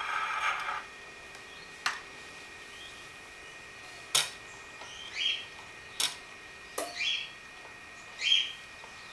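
Playback from a 1920s Peter Pan portable wind-up gramophone cuts off about a second in as the soundbox is lifted off the record. A few sharp clicks and knocks follow as the machine is handled, while a bird chirps roughly every second and a half.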